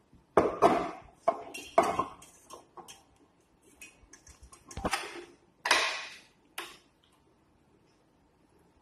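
Wire whisk and stainless steel mixing bowl clanking and clinking as they are fitted onto a stand mixer: a run of sharp metallic knocks in the first two seconds, and another clatter with a short ring around six seconds in.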